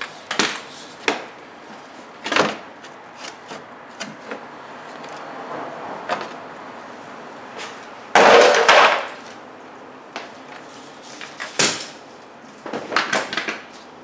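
Scattered clicks and knocks of a socket, bolts and hand tools being handled while the plastic skid plate is taken off the underside of the vehicle. A louder scraping rustle lasts about a second some eight seconds in, with a sharp knock a few seconds later and a quick run of clicks near the end.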